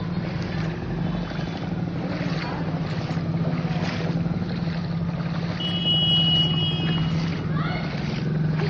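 A motor engine running steadily, with a brief high-pitched tone about six seconds in.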